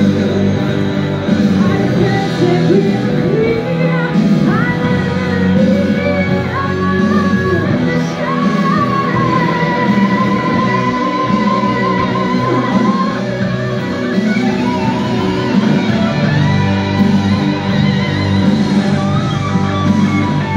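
Live rock music: a woman singing into a microphone over rock backing with electric guitar, with a long, wavering held note near the middle.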